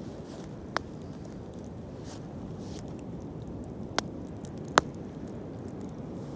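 Wood bonfire burning with a steady low rustle of flame, and three sharp pops of the burning wood: one just under a second in, then two close together about four seconds in, the last the loudest.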